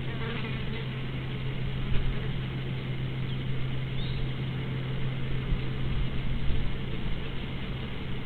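Steady low electrical-sounding hum under a loud, even hiss and an uneven low rumble from an outdoor nest-camera microphone, with a couple of faint short chirps a few seconds in.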